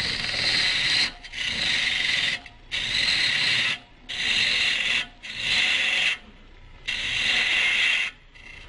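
Bowl gouge cutting wet green wood turning on a Jet Mini lathe: the shearing rasp of shavings coming off, in six passes of about a second each with short pauses between them.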